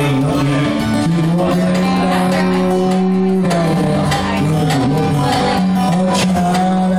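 Live acoustic band music: a strummed acoustic guitar with a fiddle, and a man singing in long held notes.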